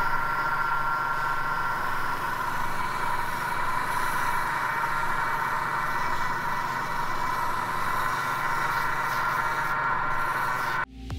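Bench-mounted sanding drum running with the edge of a leather wallet held against it: a steady motor hum and the hiss of the abrasive on the leather, cutting off suddenly near the end.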